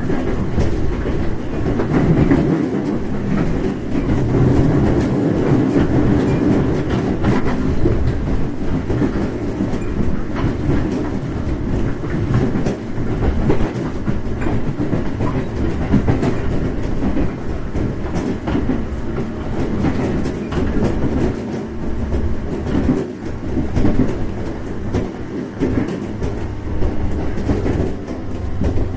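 A JR 415 series 1500 subseries electric train running at speed, heard from inside the passenger car. There is a steady rumble of running gear, and the wheels click irregularly over rail joints.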